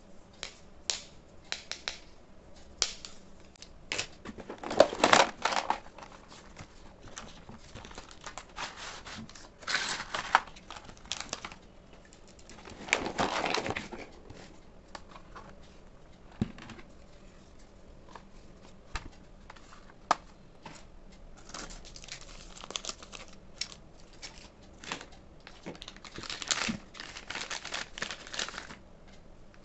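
Art supplies handled in a cardboard box: plastic packaging crinkling in several loud bursts, between scattered light clicks and taps of markers, brushes and plastic cases knocking together and against the cardboard.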